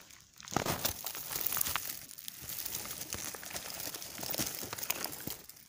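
Rustling and crackling of low shrub leaves and stems brushing against the phone as it is moved through the undergrowth close to the ground. The crackles are irregular and come close to the microphone.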